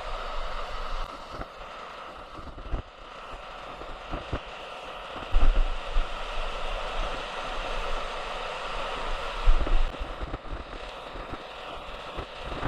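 Steady rushing of a fast-flowing stream, with a few loud low bumps on the microphone about halfway through and again near the end.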